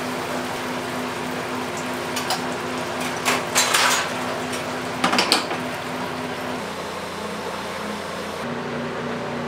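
Steady machine hum of a commercial kitchen full of pressure fryers, with a few sharp metal clanks, the loudest a little past three seconds and again at about five seconds, as fryer lids and tongs are handled.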